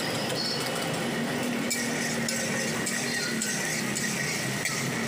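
Metal spatula scraping and clinking in an iron wok as chicken and egg are stir-fried, with a couple of sharper clinks, over a steady background hiss.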